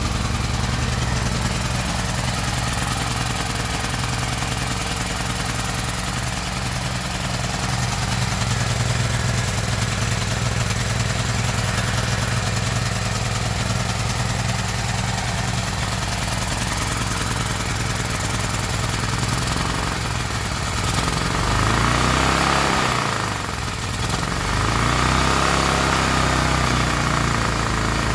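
Small gasoline generator engine running steadily. About 21 seconds in, its speed sags and picks up again, twice.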